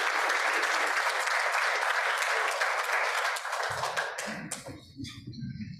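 Audience applauding steadily, dying away about four seconds in; a low hum comes in as the clapping fades.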